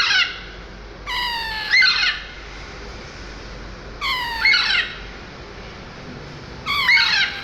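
A talking parrot saying "Mithu" in a high, squeaky voice, three times about three seconds apart. Each call is two quick syllables.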